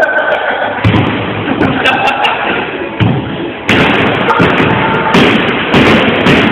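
Repeated heavy thuds and knocks of feet kicking and stomping on a wooden crate, a sharp impact every second or so, as the box is battered to break it.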